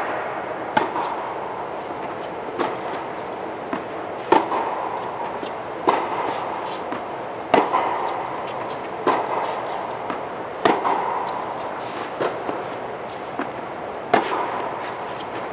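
Tennis rally inside an indoor tennis dome: racket strokes popping about every one and a half seconds, the nearer player's hits loudest and the far player's fainter, with ball bounces between them, each ringing briefly in the hall. A steady background hum runs underneath.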